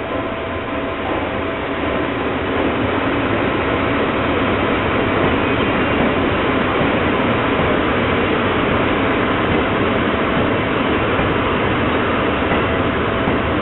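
Electric locomotive hauling a train of Seibu 101-series cars past a station platform: steady rumble of wheels on rail, swelling a little in the first two seconds and then holding as the cars roll by.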